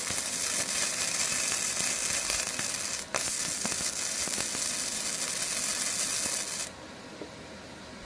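Welding arc crackling and hissing as a bead is laid on the broken mower handle. The first run stops just after three seconds, a second starts almost at once, and it cuts off sharply near the end.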